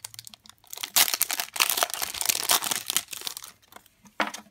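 A trading card pack's wrapper torn open and crinkled by hand, a dense crackling that is loudest through the middle, with one more short crinkle near the end as the cards come out.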